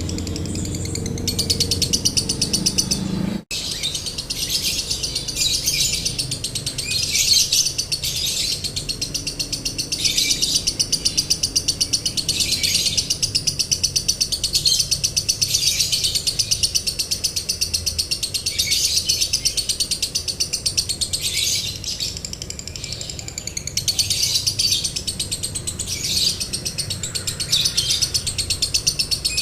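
Lovebird chattering in long, very rapid high trills, the extended 'konslet' ngekek song used as a master recording, with a brief break about three and a half seconds in.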